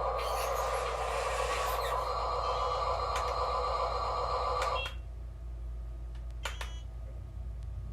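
Small electric motor of a radio-controlled construction machine running steadily, then stopping about five seconds in. A few light clicks and a low steady hum follow.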